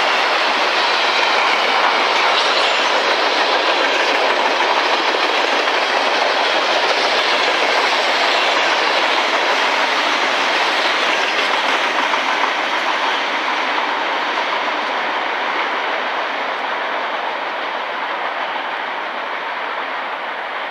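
Norfolk Southern freight train's autorack and gondola cars rolling past at speed: a steady noise of steel wheels on rail, clicking over the rail joints. It fades through the second half as the last cars pass and draw away.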